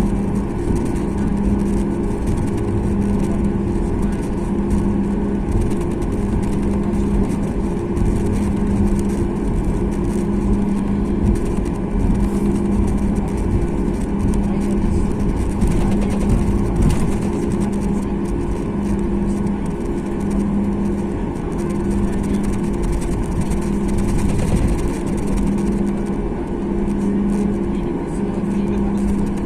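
Cabin noise inside a Boeing 737 MAX 8 airliner: the steady rumble of its CFM LEAP-1B jet engines, with a hum that swells and fades regularly about every two seconds.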